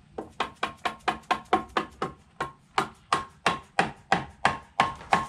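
Rubber mallet tapping a tight-fitting stainless steel skeg guard up onto an outboard motor's aluminum skeg: a rapid run of about twenty taps, roughly four a second, each with a short metallic ring.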